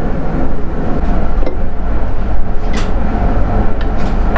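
A steady low rumble with a few light clicks scattered through it, as metal parts of the controller housing are handled.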